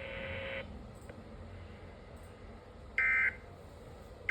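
Emergency Alert System end-of-message over NOAA Weather Radio: short, loud bursts of warbling digital SAME data tones signal that the warning broadcast is over. One burst comes about three seconds in and the next begins right at the end, over a quiet radio hum.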